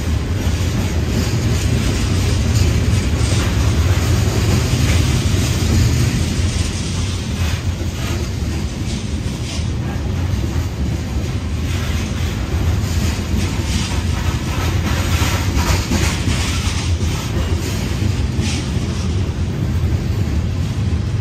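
Covered hopper cars of a CSX manifest freight train rolling past close by: a steady rumble of steel wheels on the rails, with scattered clicks and rattles as the wheels pass.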